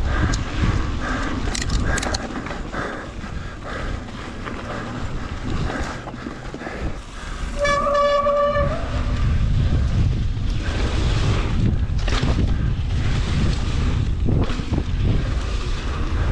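Mountain bike rolling fast down a dirt trail: wind buffeting the action camera's microphone over the rumble of the tyres on the ground. About halfway through, a brief steady horn-like tone sounds for about a second.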